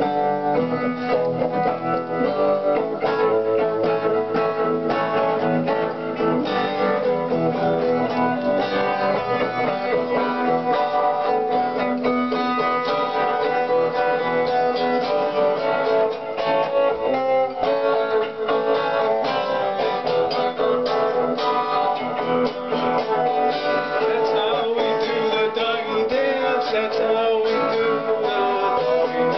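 Power Guitar being played continuously: a steady run of picked notes and chords, several notes ringing at once.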